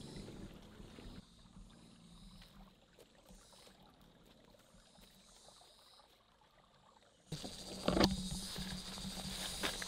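Footsteps pushing through forest undergrowth, with leaves rustling and twigs snapping. It is faint through the middle, then louder, with sharp snaps, from about seven seconds in.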